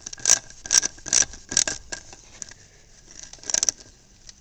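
Wrench turning the clamp bolt on a new battery cable connector, tightening it onto the cable ends: short metallic clicks and scrapes, four in the first two seconds and another bunch near the end.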